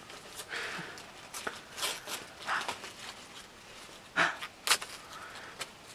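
Cardboard packaging being ripped and handled: a string of short, irregular tearing and rustling noises, the loudest a little past four seconds in.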